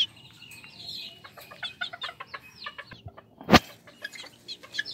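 Japanese bantam chickens clucking and chirping in their cages, with one sharp, loud knock about three and a half seconds in.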